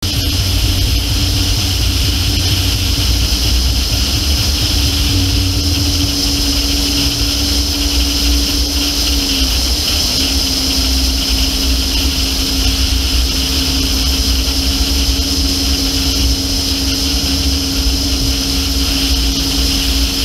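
Wind rushing over a hood-mounted camera together with the steady drone of an SUV driving fast across beach sand. A single steady hum runs through it and drops a little in pitch about halfway through.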